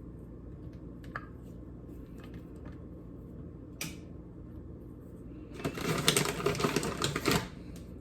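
Walnuts being crushed by hand: a few faint clicks, then about five and a half seconds in a dense burst of crackling and snapping shell-and-nut pieces lasting about two seconds.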